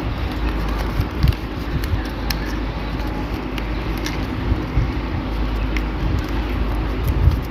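Yellow paper being folded and creased by hand, with a few faint crinkles and clicks, over a steady low rumble.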